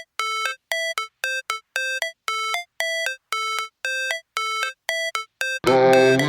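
Electronic music: a short, bright synth note with a quick higher blip at its end, repeated about twice a second. Near the end a full track with a heavy bass comes in and gets louder.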